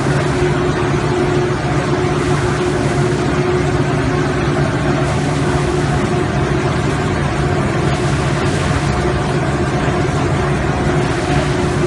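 Chili stem cutting machine running steadily: a loud, even mechanical hum with constant drone tones and no change in pace.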